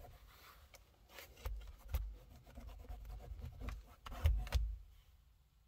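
Microfiber towel wiping a car's rear-view mirror: soft rubbing with a few dull bumps and light clicks as the mirror is handled.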